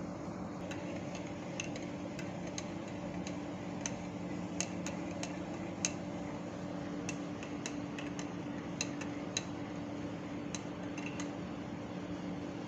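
Metal teaspoon stirring coffee in a ceramic mug, clinking against the inside of the mug in irregular light taps with a short ring, over a steady low hum.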